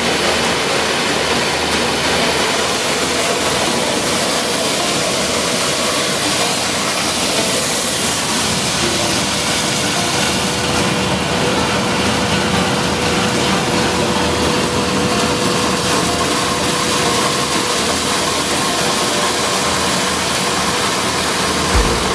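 6FW-PC2 electric corn mill grinder running, a steady unbroken machine noise with a faint constant hum.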